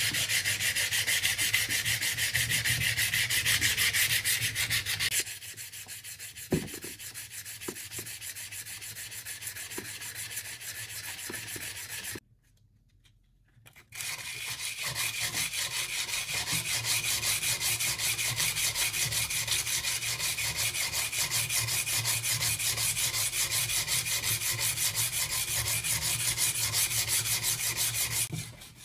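Sandpaper on a hand block scraping back and forth along a rusty steel knife blade held in a vise, in fast strokes: the blade being hand-sanded free of rust. About five seconds in the strokes turn quieter for several seconds, with a few light knocks, then stop briefly before loud, quick sanding resumes to the end.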